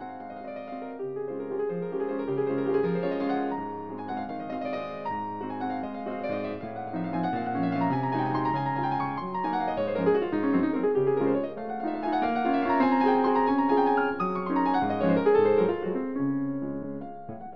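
Piano music, a flowing stream of notes with quick runs up and down.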